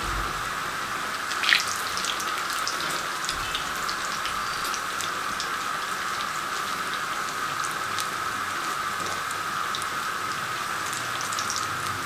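Breadcrumb-coated potato donuts sizzling as they shallow-fry in hot oil in a frying pan: a steady hiss with scattered crackles and pops, and one louder crackle about a second and a half in.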